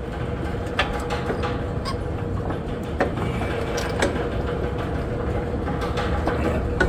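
Light metal clicks and taps as a bracket is turned and handled on an air-suspension strut body, a few seconds apart, over a steady background hum with one constant tone.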